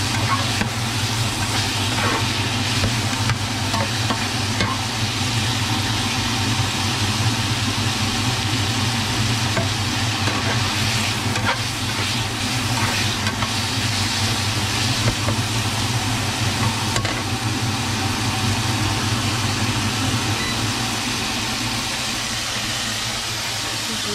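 Diced marinated chicken sizzling as it fries in oil in a non-stick frying pan, with a spatula now and then stirring and scraping the pieces against the pan. A steady low hum sits underneath.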